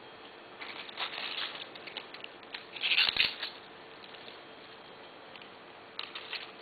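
Rustling and crackling of tulip stems and twigs being handled and pushed into a hand-tied bouquet, in short irregular bursts, loudest about three seconds in with a light knock.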